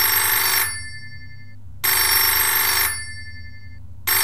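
Telephone ringing in repeated rings, each about a second long and coming about every two seconds, over a low steady hum.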